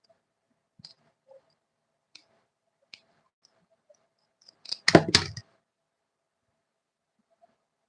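A few light taps and clicks, then a short burst of loud knocks and clatter about five seconds in, from fan parts and tools being handled during repair work.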